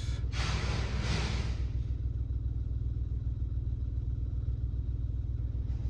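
Flatbed tow truck's engine running with a steady, evenly pulsing low rumble while it loads a car, with a hiss of air or hydraulics for about the first second and a half.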